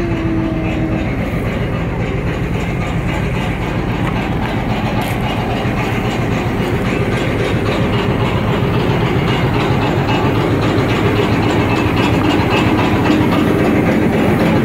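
Diesel locomotive's engine running steadily, a loud continuous rumble with fast, even low pulsing, heard up close beside the underframe.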